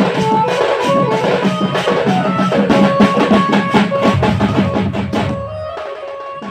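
Sambalpuri melody band music: fast, dense drumming under a held-note melody line. Near the end the drums stop and the melody fades out.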